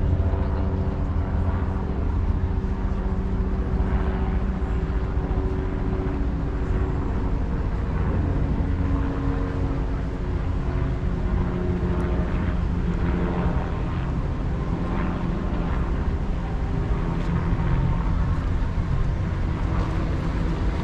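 A steady engine drone over a deep rumble, its pitch shifting slowly.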